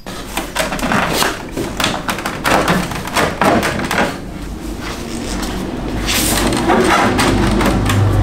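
BMW E30 front bumper being worked loose and slid off its mounting rails: an irregular run of knocks, taps and rattles. A low steady hum comes in about six seconds in.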